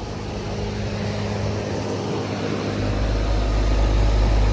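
Goodman GSZ13 4-ton heat pump outdoor unit running in cooling mode: the steady hum of its scroll compressor under the whoosh of the condenser fan. The sound grows louder, and a deep low rumble joins about three seconds in.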